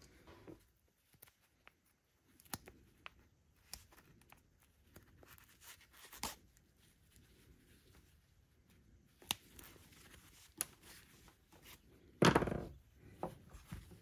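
Gloved hands handling a new nylon starter pull cord: scattered light clicks and rustles, with one louder rustle lasting about half a second near the end.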